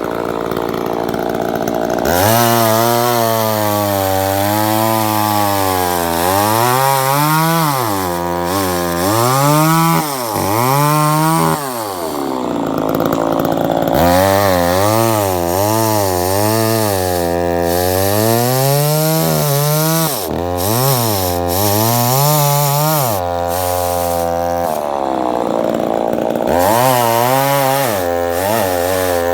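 Gasoline chainsaw cutting through a tree stump. Its engine speed rises and falls again and again as the chain bites into the wood and is eased off, settling briefly twice. The saw's tip guard keeps the bar from reaching deep, so the cut is being worked around the trunk.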